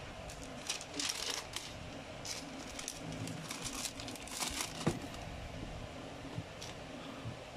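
Tissue paper in a shoebox crinkling in several short bursts as it is folded back by hand to uncover the sneakers, loudest a little before the five-second mark.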